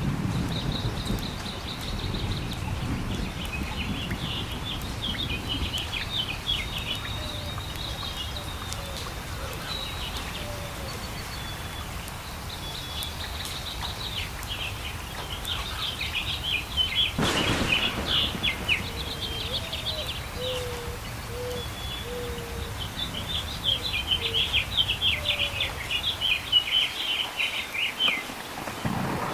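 Songbirds singing: repeated bursts of rapid, high twittering chatter, joined through the middle by a series of short, low whistled notes, over a steady background hiss. A single sharp crack cuts across the song about seventeen seconds in.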